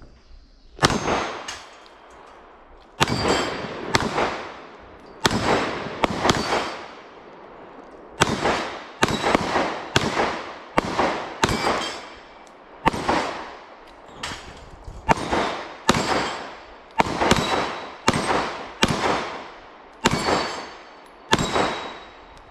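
Pistol shots fired one at a time at steel plate targets, about two dozen in all, mostly half a second to a second apart with a few short pauses; each shot trails off in an echo, and the struck steel plates ring with a clang.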